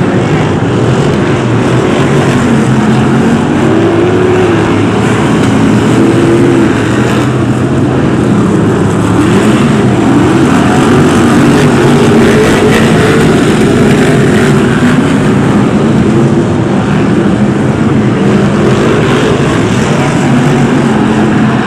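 A pack of BriSCA F1 stock cars racing, several V8 engines running loud at once. Their pitches overlap and rise and fall as the cars lap.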